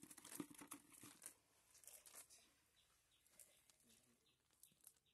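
Nylon cast net rustling and scraping on concrete as hands pick the catch out of its mesh. Short, crackling rustles come thick in the first two seconds, then thin out to a few scattered clicks.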